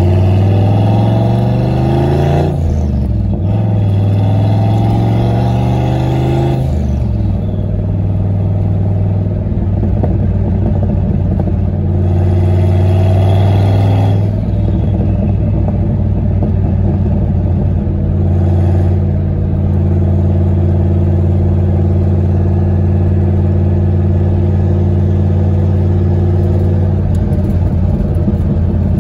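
1992 Fox-body Mustang's 5.0 V8 accelerating through two gears, its note rising and then dropping at each shift, then settling into a steady cruise with one smaller rise in the middle.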